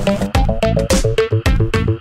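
Electronic music: quick rippling synthesizer notes over a steady bass line and a regular beat.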